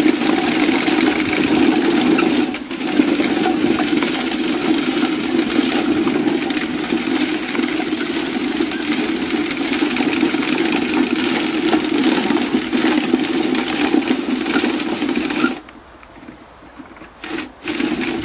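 Hand-cranked beet shredder grinding apples: the toothed drum shredding the fruit as it is turned, a steady grinding noise that stops about fifteen seconds in, followed by one short burst.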